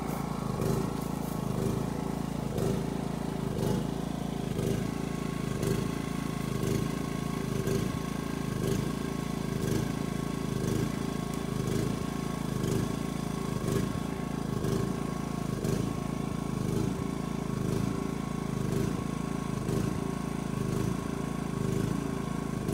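A small engine running steadily, with a regular pulse about once a second.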